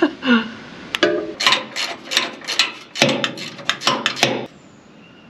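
Quick metallic clicks and knocks from hand work on a grease nipple at the cleaning fan bearing of a John Deere 9770 combine, several a second for about three seconds, stopping near the end.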